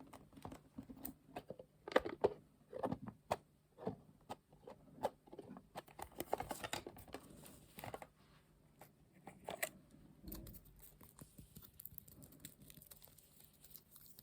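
Close-miked handling of small stationery items: irregular sharp taps, clicks and light rustles, coming thickly at first and thinning out after about ten seconds.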